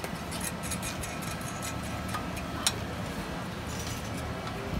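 Small metal clicks and clinks of a bolt, nut and clamp bracket being handled against a steel cylinder housing, with one sharper click a little past halfway, over a steady low hum.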